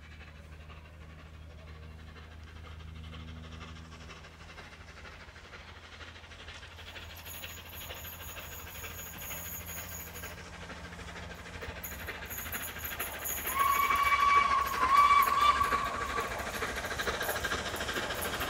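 Flying Scotsman, an LNER A3 Pacific steam locomotive, approaching at speed, its running sound growing louder. About three-quarters of the way through its whistle blows one steady note for about three seconds, the loudest sound here.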